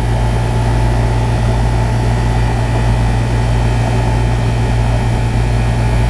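Carrier dual-circuit rooftop air-conditioning unit running, its hermetic compressors and condenser fan making a steady low hum, heard close up.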